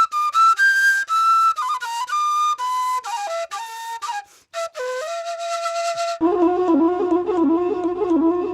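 Washint, the Ethiopian bamboo flute, playing a melody of short stepped notes that works its way down in pitch. About six seconds in the sound cuts suddenly to a lower, wavering flute line over a steady low drone.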